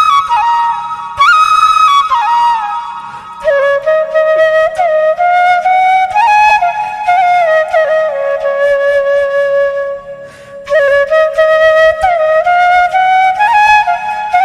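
Background music: a slow solo flute melody with sliding, ornamented notes and a brief break about ten seconds in.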